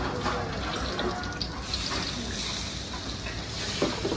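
Hot cooking oil trickling from a tilted wok into another wok of frying bánh xèo batter, over a steady hiss.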